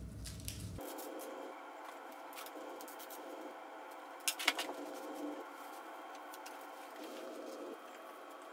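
Quiet room tone with a faint steady hum, broken by a few small sharp clicks about four seconds in.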